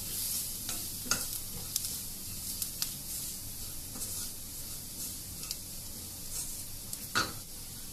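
Onion, garlic, curry leaves and chilli, cumin and turmeric powders sizzling in hot coconut oil in a stainless steel kadai while a wooden spatula stirs them, with a few sharp scrapes and taps of the spatula against the pan. The spices are being roasted in the oil.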